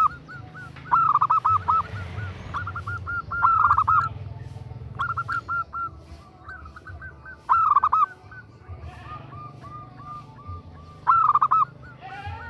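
Female zebra dove (perkutut) cooing: loud bursts of quick, repeated rolling notes about every three or four seconds, with softer coos in between. The call is a hen in breeding condition calling for a male.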